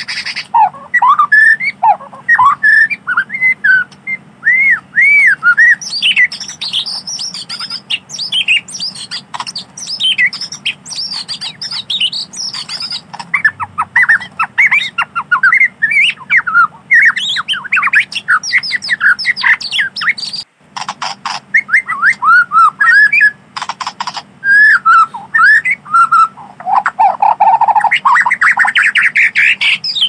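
White-rumped shama (murai batu) singing a long, varied song of whistled phrases, with quick arching and sliding notes in fast runs and a brief break about twenty seconds in.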